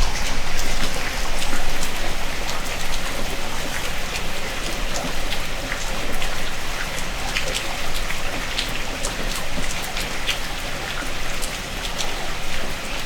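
Heavy rain falling steadily, a dense hiss with many sharp drop ticks close by as the drops strike a surface.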